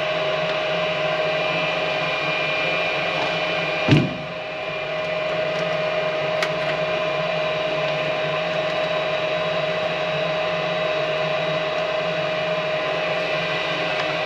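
Nordyne gas furnace's draft inducer motor running with a steady hum and a high steady tone, pulling good pressure at the pressure switch. A single sharp knock sounds about four seconds in.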